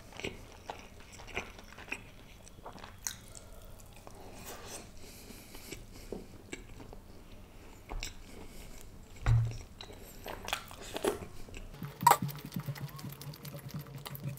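Close-miked chewing and wet mouth sounds of eating naan with butter chicken, with scattered sharp clicks and a soft low thump about nine seconds in. Near the end, the sticky squish of rice and gravy mixed by hand.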